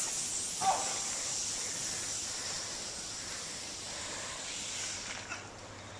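Snow tube sliding down a snowy hill, a hissing scrape over the snow that fades as the rider slides away. A brief faint shout comes about a second in.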